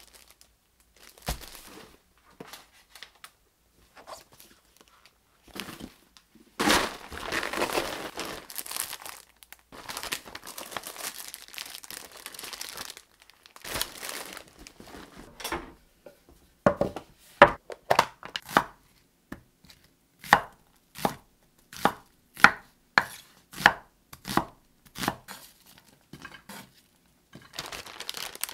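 Kitchen prep sounds: a stretch of rustling and crinkling in the first half, then a knife chopping on a cutting board in steady, evenly spaced strokes, about one and a half a second.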